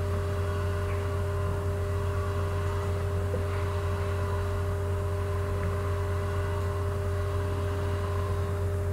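Steady low background hum with two fainter steady tones above it and a light hiss, unchanging throughout: the noise floor of the voice-over microphone with no other sound.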